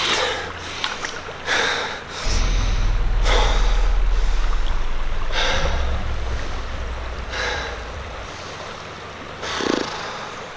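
A person breathing heavily, with a loud breath every second or two over a steady low rumble.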